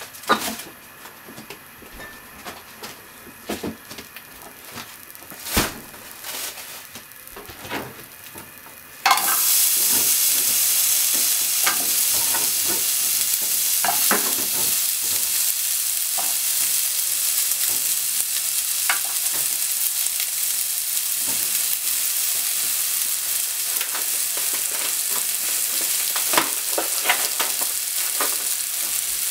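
A few sharp knocks in a quiet kitchen, then about nine seconds in sliced onions land in a hot frying pan and start sizzling loudly. The steady frying hiss carries on, with occasional clicks as the onions are stirred.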